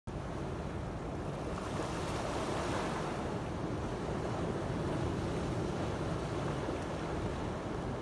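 Sea surf washing on a rocky, pebbly shore: a steady rushing wash with a low rumble underneath, swelling slightly about two seconds in.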